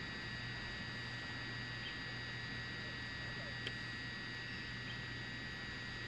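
Steady hiss with a low hum and several high, unchanging whining tones, and a single faint click about three and a half seconds in.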